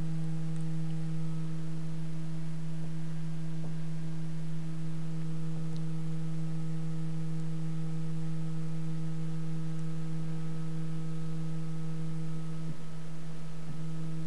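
Stepper motors of a RepRap Prusa Mendel driving the Z axis down during a G28 homing move, giving one steady hum at an unchanging pitch.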